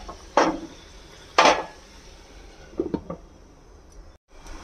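A glass pot lid being set onto a stainless steel cooking pot: two sharp clinks about a second apart, then a few lighter taps.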